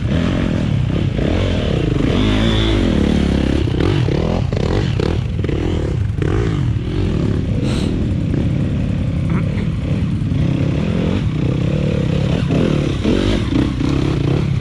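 Dirt bike engine revving up and down as it climbs a rocky, rutted trail and passes close, over idling quad engines, with occasional clatter of stones under the wheels.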